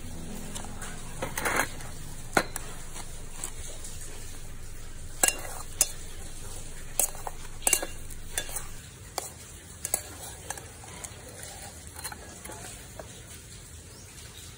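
A metal spoon scraping and clinking against a stainless steel bowl as a soft mash is stirred and scooped out, giving about a dozen short irregular clinks. A steady hiss runs underneath and drops off about two-thirds of the way through.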